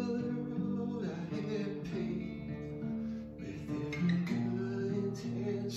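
A man singing to a strummed acoustic guitar, with the chords changing about once a second.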